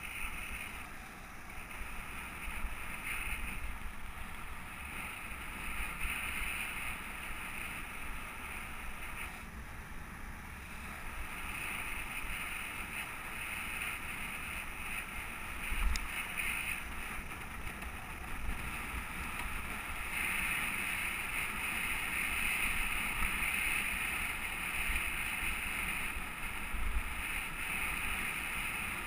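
Wind rushing over the microphone of a camera riding on a moving bicycle, gusting and fluttering, with the steady rush of tyres on an asphalt path. A single short knock comes about sixteen seconds in.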